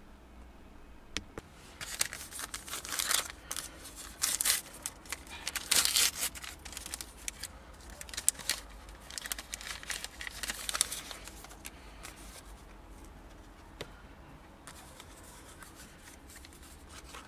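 Screen-protector accessory packets crinkling and being torn open, a cluster of sharp rustles about two to eleven seconds in, then quieter rubbing of a cleaning wipe on the screen.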